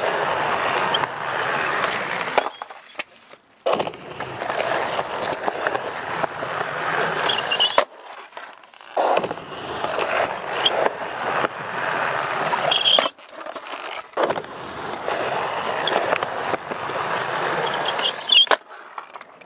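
Skateboard wheels rolling on rough asphalt in several stretches that cut off abruptly, with sharp clacks of the tail popping and the board landing.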